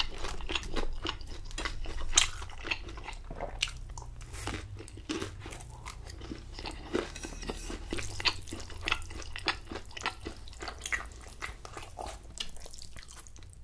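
Close-miked chewing of battered, deep-fried sweet and sour pork (tangsuyuk), with many irregular crunches and wet mouth sounds.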